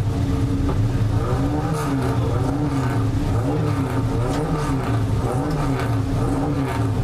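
Alfa Romeo 1750 GTV's twin-cam four-cylinder engine heard from inside the cabin, held at a fast idle and blipped repeatedly, the revs rising and falling about once a second with the car at a standstill.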